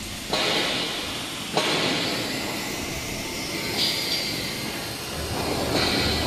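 Large lathe turning a trommel screen body while its gear ring is polished: a steady machining noise with a hissing, grinding edge that shifts abruptly in tone a few times.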